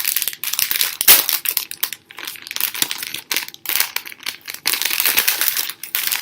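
Gift packaging being crinkled and crumpled by hand as a pair of socks is unwrapped, in irregular crackly bursts with a sharp loud rustle about a second in.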